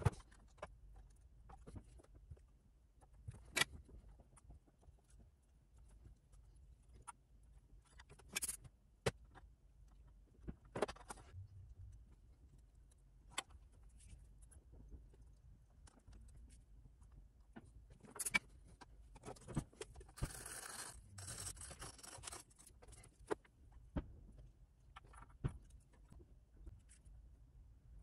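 Scattered small clicks, taps and scrapes of a circuit board, wires and a soldering iron being handled on a workbench, with a brief hiss about two-thirds of the way through.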